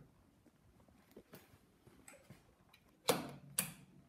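Light clicks and knocks of hands working in a race car's cockpit before the engine is started, with two sharper clacks about half a second apart near the end.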